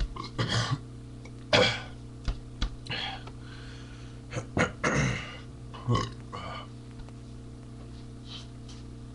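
A man burping repeatedly after drinking Colt 45 malt liquor: a string of about seven short, loud belches. The loudest comes about a second and a half in, and a longer, drawn-out one comes about five seconds in.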